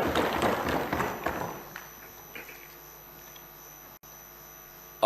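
Applause from the members in the assembly chamber, a dense patter of claps or desk thumps that dies away over the first two seconds and leaves a faint steady hum of room tone.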